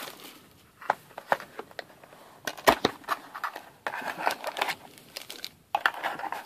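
Wrapped trading-card packs and a cardboard card box being handled: crinkling and rustling of the pack wrappers, with scattered clicks and taps as the packs are lifted out of the box.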